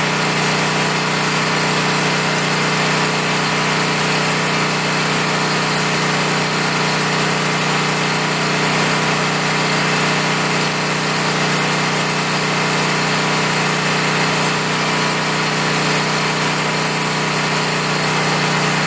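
Portable generator engine running steadily at a constant speed, an even mechanical drone with no change.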